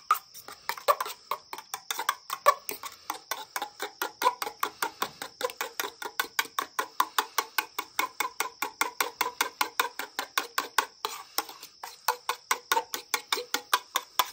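A fork stirring mayonnaise and hot sauce in a small stainless steel cup, clicking against the metal in a steady rhythm of about five strokes a second.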